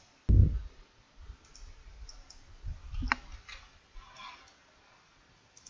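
Computer mouse clicking a few times while selecting and dragging points, with a dull thump about a third of a second in.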